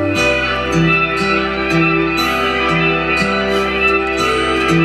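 Instrumental music played through a home-built one-transistor (BC547B) tone-filter stage and amplifier over a loudspeaker: a plucked-string melody over a bass line that steps to a new note about every half second. The filter is set for boosted bass and maximum treble.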